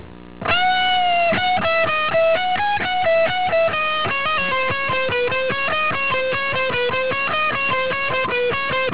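Electric guitar playing a fast single-note lead lick in F-sharp minor, drawing on the Dorian scale and the blues scale with its flat five. It opens on a held note about half a second in, then moves into a quick run of notes.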